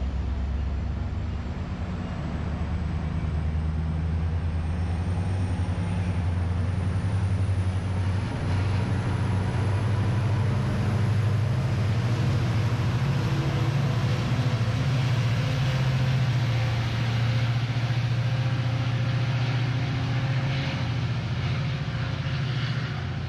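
MARC commuter train moving through a station and pulling away under diesel-locomotive power: a steady low engine drone, heaviest as the locomotive goes by mid-way, with a faint high whine that slowly rises in pitch.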